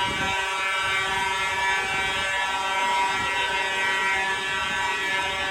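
Fire alarm horns sounding a steady, continuous buzzing tone during a building alarm activation.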